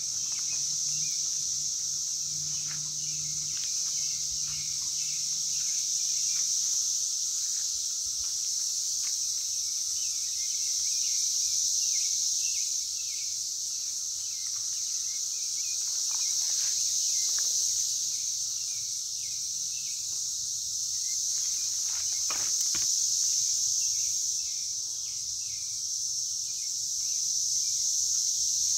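Chorus of insects, a steady high-pitched drone that swells and fades in waves every few seconds, with scattered short bird chirps.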